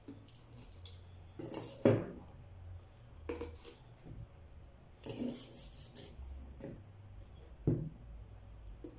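A metal table knife scraping and tapping against the mouth of a plastic shampoo bottle as ground coffee is pushed in, with a few separate knocks as the bottle is handled on a table. The sharpest knock comes about two seconds in.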